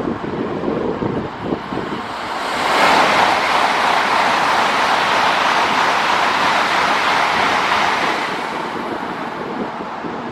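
Shinkansen bullet train passing through the station at speed without stopping: a loud rush of air and wheels that swells up sharply about two and a half seconds in, holds for about six seconds, then fades away.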